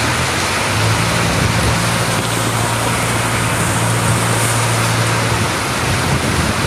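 Heavy rain pouring steadily in strong wind. A backhoe loader's diesel engine hums as it drives past, from about a second in until near the end.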